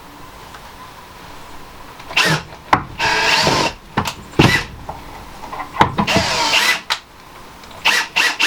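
Power drill driving pocket-hole screws into plywood in several short bursts, starting about two seconds in, its motor whining up and stopping each time.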